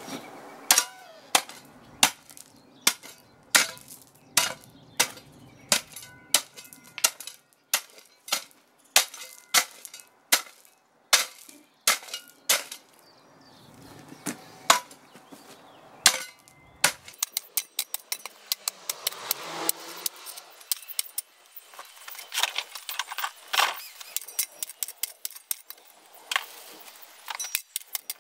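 Metal spade blade chopping into gravelly soil and turf to cut out weeds, sharp gritty strikes about one and a half a second. About two-thirds of the way in the strokes give way to quicker, denser scraping and clinking of the blade on the stones.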